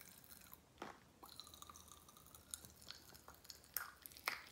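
Faint chewing of a snack, with a few sharp mouth clicks and crunches, the loudest about a second in and near the end.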